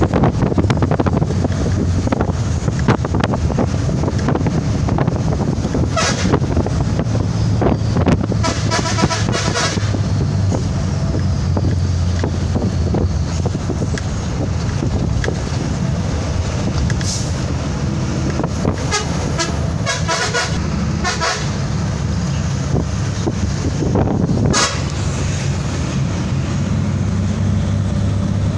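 A vehicle driving on a road, with a steady low engine and road rumble. Vehicle horns toot several times over it: once about six seconds in, repeatedly around ten and twenty seconds in, and again near the end.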